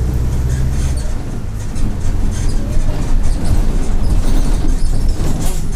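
Mercedes-Benz OF-1722M city bus's turbo diesel engine running: a steady low hum at first, then a rougher, louder drone from about two seconds in, with many sharp clicks and rattles over it.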